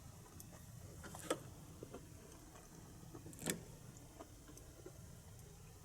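Faint scattered clicks and light taps over a low hum, with two louder clicks, one about a second in and one midway.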